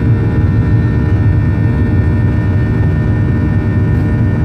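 CFM56-7B turbofan engines of a Boeing 737-800 at climb power, heard from inside the cabin: a loud, steady low rumble with thin steady whining tones above it.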